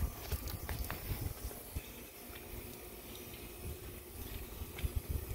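Water from a garden hose running through a long wash-brush wand and splashing onto a car's side windows and body as it is rinsed: a steady hiss of water.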